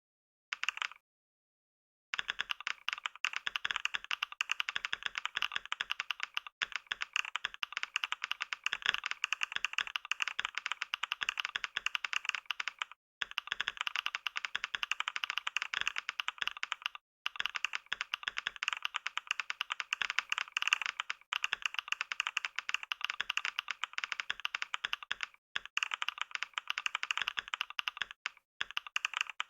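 Fast, continuous typing on a computer keyboard: a dense stream of key clicks. A short burst comes right at the start, then a pause of about a second, then steady typing broken by a few momentary pauses.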